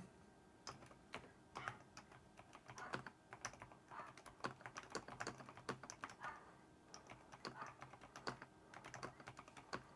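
Typing on a mechanical keyboard: a quiet, irregular run of key clicks.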